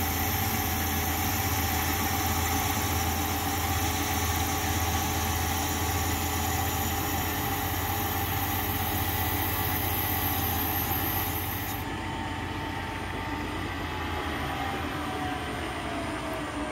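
Metal lathe running steadily with a low hum while a radius-cutting tool cuts the spinning workpiece; about twelve seconds in the high cutting hiss stops and the lathe keeps running a little quieter.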